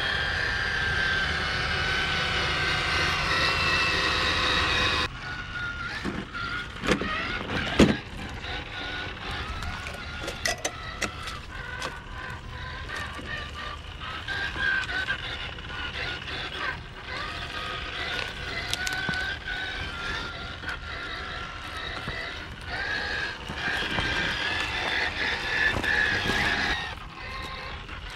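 Traxxas TRX-4 RC crawler driving: the whine of its brushless motor and geartrain rises and falls with the throttle, with a few short knocks from the truck working over the terrain. The sound changes abruptly about five seconds in.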